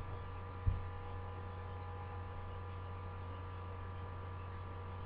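Steady low background hum with a few faint higher steady tones over a light hiss, broken by two short low thumps in the first second.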